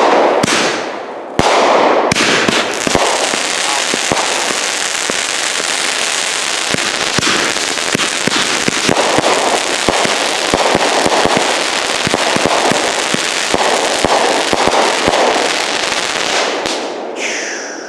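Consumer firework cake firing a long volley: shots launch every second or so amid constant crackling and sharp bursts. Near the end a falling whistle sounds and the volley dies away.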